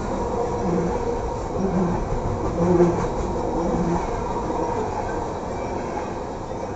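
Coal train's cars rolling past on the track overhead: a steady rumble with a low groaning tone that repeats about once a second, fading toward the end.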